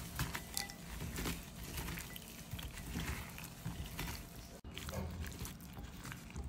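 A gloved hand mixing and squeezing oil-coated chopped chicken, red onion and spices in a bowl: irregular wet squishing and rustling, broken off for an instant about four and a half seconds in.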